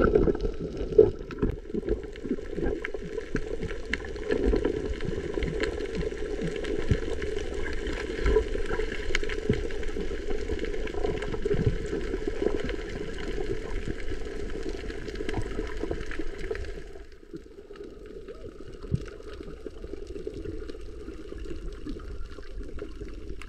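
Underwater ambience heard from a submerged camera: a muffled steady watery rush scattered with many faint clicks and crackles. It drops in level a little past the middle.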